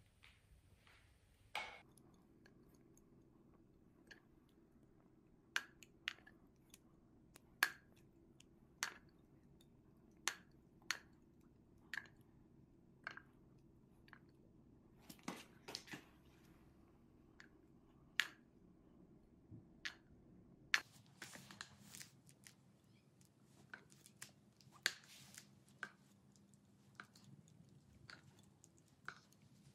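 Light sharp taps and wet clicks at irregular spacing, about one a second and closer together in the last third. They come from a stick working in an open tin of black paint and from paint dripping onto small canvases. A faint low hum lies under them until about two-thirds of the way through.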